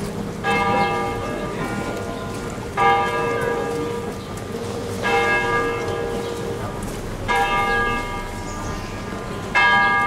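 A large church bell tolling slowly, one stroke about every two and a quarter seconds, five strokes in all, each ringing on into the next.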